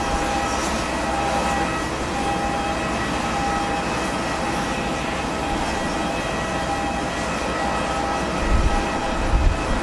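Jet airliner engines running with a steady rush and a thin whine. Strong wind buffets the microphone in low gusts near the end.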